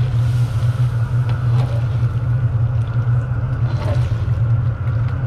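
Steady low roar of a gas burner firing under a large cast-iron stew kettle at the boil.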